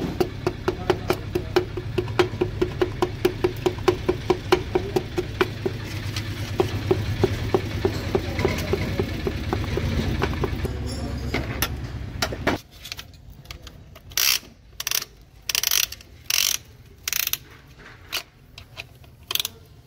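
Piston being tapped down through a band-type piston ring compressor into a diesel engine's cylinder bore with the end of a hammer handle: rapid light knocks, about four a second, over a low steady hum. About thirteen seconds in the hum stops and a few short rasping bursts follow as the ring compressor is handled.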